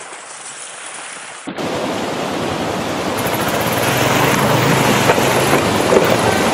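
A quiet hiss at first. After a cut about a second and a half in comes loud rushing and splashing water as a dual-sport motorcycle rides through a rocky stream and goes down in the water, its engine faintly running under the water noise.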